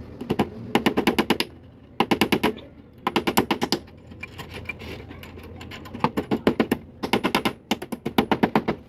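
Claw hammer driving small nails into an old wooden frame to fasten chicken wire. The strikes come as several runs of rapid, light taps, with short pauses between the runs.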